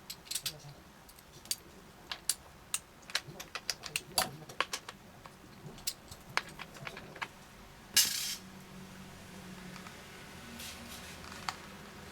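Small metal carburetor parts and hand tools clicking and clinking as they are handled and set down during carburetor disassembly. There is one louder clatter about eight seconds in.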